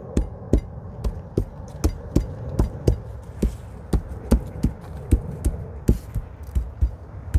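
Quick, irregular knocks, about three to four a second, as the metal shelf tubes of a stackable shoe rack are tapped home into its plastic side connectors.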